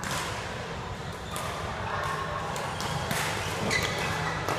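Badminton rackets striking a shuttlecock in a doubles rally: several sharp cracks, most in the second half, a half-second or so apart, with voices in the background.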